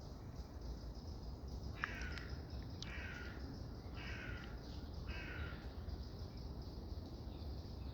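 A bird calling four times, each harsh call about half a second long, over a steady faint background hiss.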